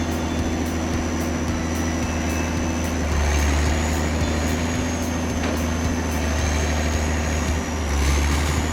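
Late-1970s boom-type timber processor at work: its engine runs steadily under load, swelling a little about three seconds in and again near the end, with a thin high whine over it.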